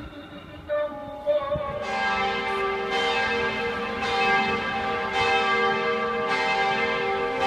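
Church tower bell ringing. From about two seconds in, it strikes roughly once a second, and each stroke rings on into the next.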